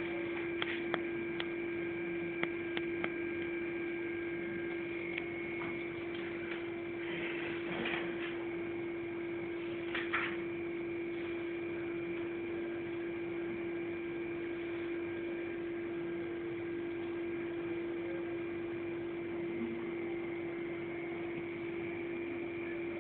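Steady electrical hum with a fainter high whine over a constant hiss. A few light clicks come in the first three seconds, and there are two brief rustles around eight and ten seconds in.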